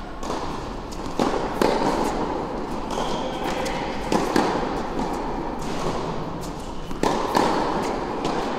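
Tennis balls struck by a racket during groundstroke practice: sharp pops echoing in a large indoor hall, coming in pairs about half a second apart, three times, roughly every three seconds.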